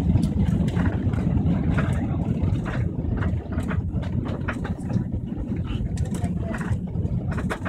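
Cabin noise of an Airbus A380 on its takeoff roll: a loud, steady, deep rumble of engines at takeoff thrust and wheels on the runway, with scattered light rattles.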